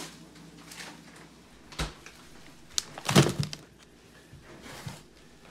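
Handling knocks as a plastic bag of frozen mixed berries is set down on a table: a light knock near two seconds, then a louder thump a little after three seconds.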